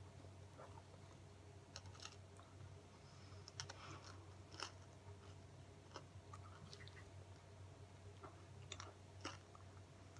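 Faint mouth sounds of a person chewing and crunching a lemon sherbet, a hard boiled sweet, with irregular sharp little clicks and crunches, over a steady low hum.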